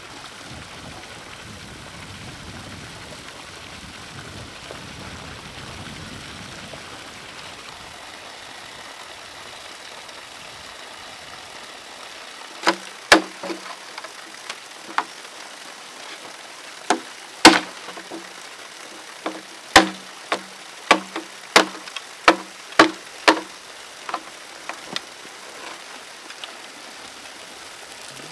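Water splashing steadily from a hose into a pond. From about halfway, a series of about fifteen sharp, irregular knocks, each with a short low ring, as a green bamboo pipe is hacked at with a blade.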